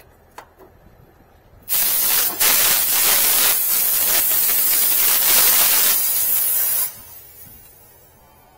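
Pressurized R-410A refrigerant hissing out loudly at a mini-split's service port as the charging hose is unscrewed. It starts about two seconds in and cuts off sharply about five seconds later. This is the small loss of charge expected when disconnecting the hose.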